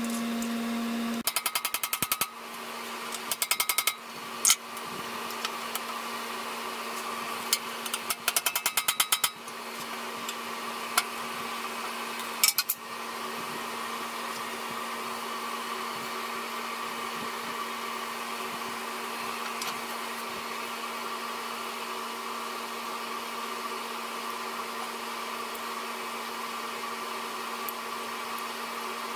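Ratchet wrench clicking in several quick runs as a nut on the cutter's spring bolt is turned, with a few single metal knocks, over a steady mechanical hum.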